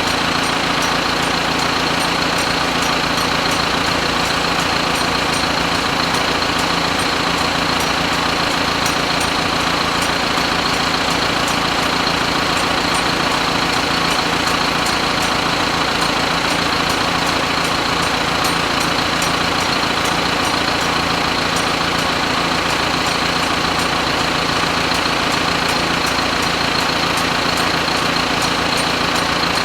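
A machine running steadily at constant speed: an even hum with a high steady whine, unchanging throughout.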